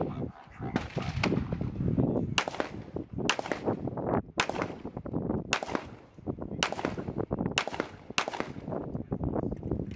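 M18 9 mm service pistol fired in a string of about seven sharp shots roughly a second apart, starting a couple of seconds in, with a few fainter pops before them.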